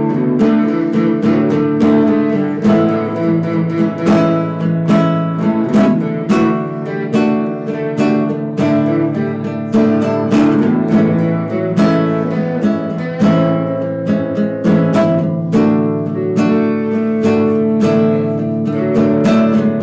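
Band music led by acoustic guitar, strummed and picked in a steady run of notes over held chords.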